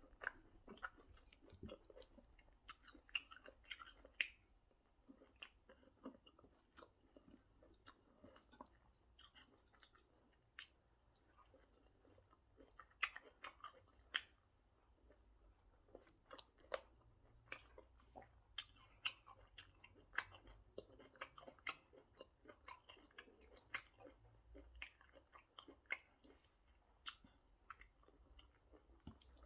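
A person chewing and smacking while eating pounded yam with egusi soup, close to the microphone: faint, irregular mouth clicks and smacks, several a second at times.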